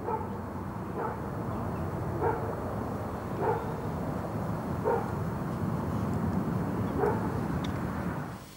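A dog barking, about six short barks spaced a second or more apart, over a steady low noisy rumble.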